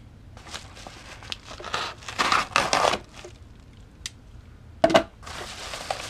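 A paper padded bubble mailer being slit with a knife blade and torn open, with crinkling and tearing of paper and bubble lining. There is a short loud knock just before five seconds in, then more rustling as the bubble-wrapped package is pulled out.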